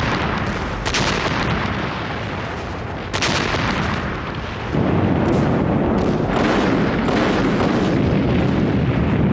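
Artillery barrage: heavy guns firing, with sharp blasts about a second in and about three seconds in, then dense, continuous firing that grows louder from about halfway.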